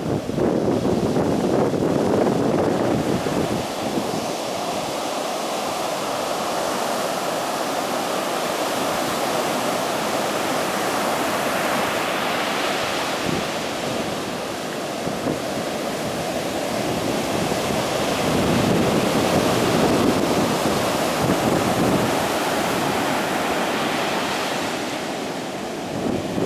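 Heavy ocean surf breaking and washing in a continuous roar that swells and eases as successive waves come in, louder about two seconds in, around the middle, and again about three-quarters of the way through. Some wind on the microphone.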